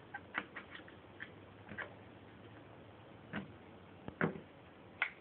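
Light clicks and ticks of a screwdriver and metal parts as a takedown pin is worked out of a Bushmaster M17 rifle: a run of small clicks in the first two seconds, then three single sharper ticks spaced about a second apart.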